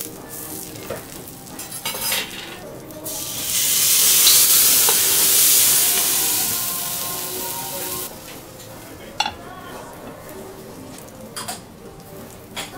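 Vegetables sizzling on a hot teppanyaki steel griddle with a few metal spatula clicks. About three seconds in, water hits the hot plate under a copper dome and gives a loud burst of hissing steam that fades over several seconds, steaming the vegetables. A few sharp metal clinks follow near the end.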